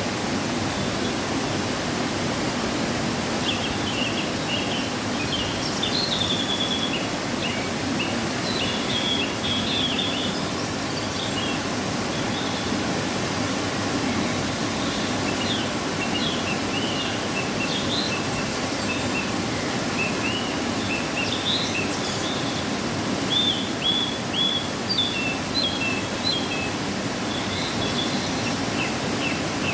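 Waterfall swollen by rain rushing steadily, with birds chirping and trilling over it again and again.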